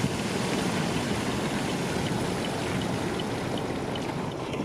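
Steady rushing noise of rain and wind around the vehicle, with faint scattered ticks.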